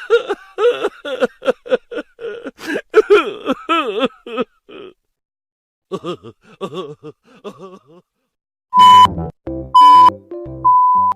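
Sound-effect clips: a fast, pitch-bending cartoonish voice-like chatter, then three loud steady beeps of the kind used as a censor bleep, each about half a second long and about a second apart, near the end.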